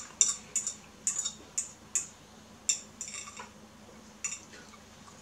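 Metal spoon clinking and scraping against a ceramic bowl while scooping up fried rice: a dozen or so quick, sharp clinks at uneven spacing, most of them in the first three seconds and a few more near the end.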